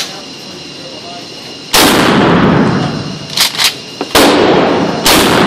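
Pump-action Mossberg shotgun fired in an indoor range: a very loud shot about two seconds in with a long echoing tail, two quick sharp clacks of the pump being racked, then a second shot about four seconds in and another loud bang near the end.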